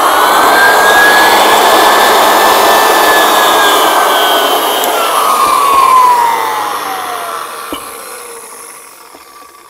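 Floor edger sander running with its rubber pad grinding against an abrasive, dressing the pad flat so that it contacts evenly and the edger won't bounce. The motor is already winding up to speed at the start; about halfway through it is switched off and its whine falls in pitch as the pad coasts to a stop and fades out.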